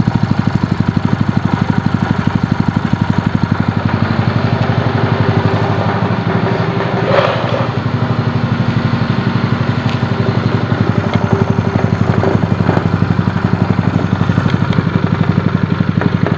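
Lifan KP230 8 hp single-cylinder four-stroke engine idling steadily on its first run, an even rapid firing beat that sounds like a motorcycle engine and runs quietly for its size. A short clatter about seven seconds in.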